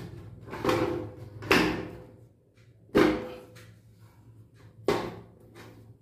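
The front cover of a Bellano gas water heater being handled and pushed into place: four separate knocks and clatters of the casing, the loudest about one and a half and three seconds in, some followed by a short ring.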